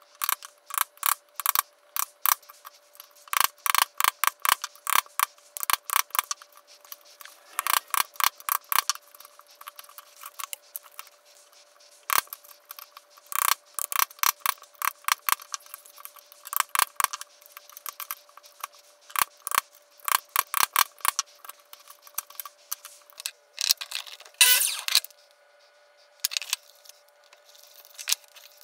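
Repeated bursts of rapid clicking from a hand tool worked quickly back and forth against wood, each burst lasting a second or two with short pauses between, over a faint steady hum.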